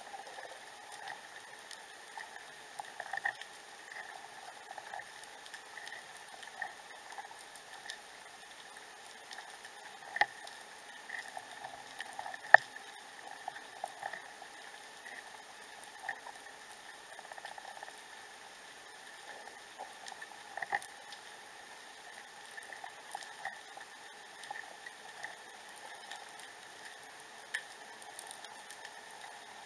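Underwater ambience picked up by a submerged camera: a faint steady hiss and hum with irregular small clicks and crackles, and one sharp click about twelve seconds in.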